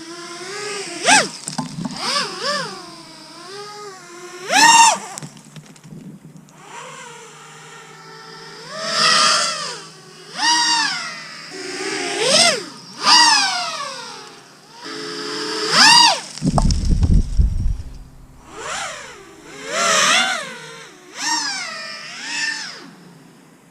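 7-inch FPV drone with Brotherhobby 2808 1500kv motors and Gemfan 7040 props making repeated flybys. Its high whine swells and bends up and down in pitch with throttle punches and passes, about a dozen surges, with a brief low rumble about two-thirds of the way through.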